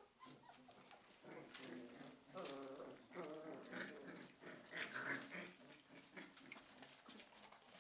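Basset hound puppies play-fighting, giving faint little growls, grunts and whines, with several short wavering cries in the middle.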